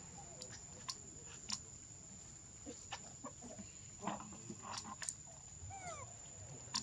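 Faint outdoor ambience: a steady high-pitched whine, scattered short sharp clicks, and a quick run of three falling chirps near the end.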